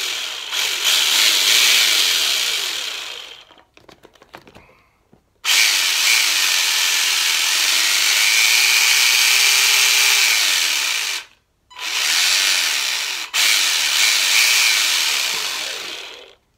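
Tamiya Terra Scorcher's brushed electric motor and gear drive whirring under throttle on the bench, in three long runs: one ending about four seconds in, one from about five and a half to eleven seconds, and one from about twelve seconds to near the end with a brief dip at thirteen. The pitch rises and falls with the throttle, and it sounds pretty meaty.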